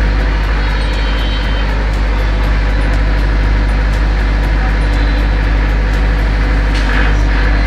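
Sakura SP22YD 22 kVA diesel generator running steadily at a constant drone, just after an automatic start on mains failure, warming up before it takes the load.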